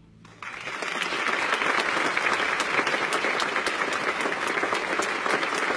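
Theatre audience applauding: after the last of the orchestra's final chord dies away, clapping breaks out suddenly about half a second in and swells within a second into dense, steady applause.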